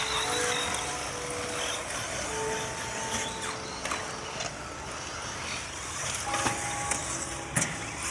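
Radio-controlled buggies running on a dirt track, their motors whining in short held notes that come and go as they accelerate, with a few sharp knocks, the loudest near the end.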